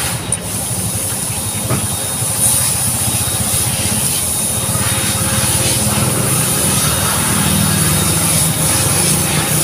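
Steady roadside traffic noise with an engine running nearby, a low even rumble, over a constant high hiss.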